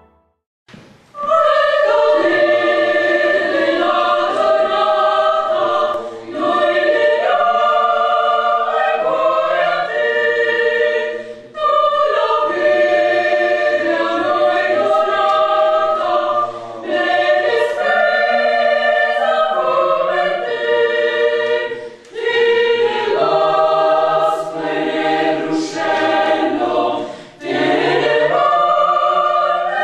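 A choir singing, apparently unaccompanied, in slow held phrases of about five seconds each with short breaks between them; it comes in about a second in after a moment of silence.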